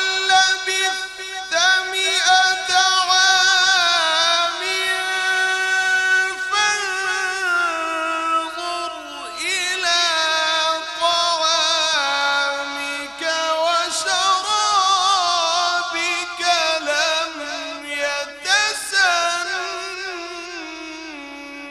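A man reciting the Quran in melodic tajweed style, drawing out long notes with ornamented, wavering pitch. The voice grows softer near the end.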